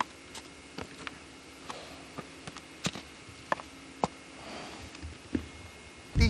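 Arabian horse sniffing and nuzzling at the camcorder, close to the microphone: a scatter of small clicks and soft snuffling breaths. A sudden loud rumble of noise breaks in right at the end.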